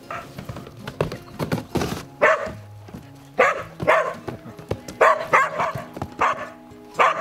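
Dogs barking repeatedly, the barks coming thicker in the second half, with a horse's hooves clopping on a dirt yard.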